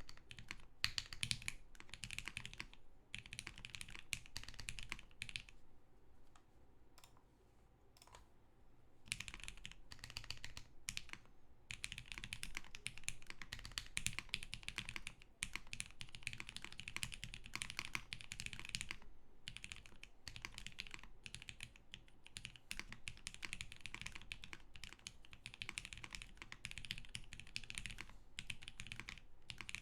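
Typing on a Keycult 1/65 custom mechanical keyboard built with an aluminium plate, lubed and filmed vintage Cherry MX Black linear switches and GMK keycaps: a steady run of keystrokes that thins to a few scattered ones for a few seconds about a quarter of the way in.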